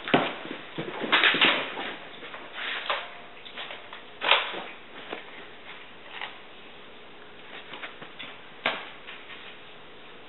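Irregular scuffs and light thumps of a Bengal cat playing with a toy mouse on a cat-fisher wand, pouncing and scrabbling on the floor. The busiest burst comes about a second in, a sharp knock near four seconds, and a single one near the end, with quieter stretches between.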